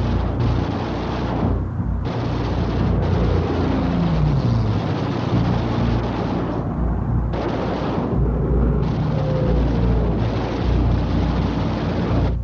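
Aerial combat sound: gunfire and explosions over a steady drone of aircraft engines, with a couple of falling whines like a diving plane.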